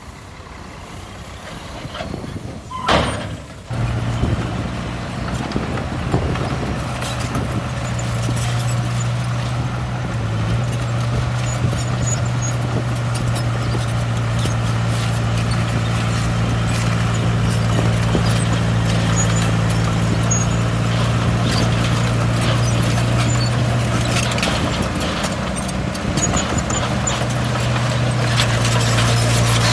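Diesel engine of heavy earthmoving machinery running steadily at a constant low hum, with scattered clanks and knocks. A sharp bang comes about three seconds in, just before the engine sound sets in.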